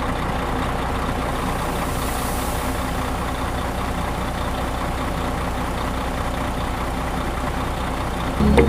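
A truck engine running steadily with a low, even rumble. It stops near the end.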